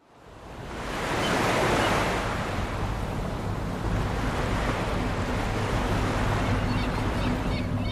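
Ocean surf rushing, fading in from silence over the first second or so and then holding steady over a low, steady hum. Faint high calls begin near the end.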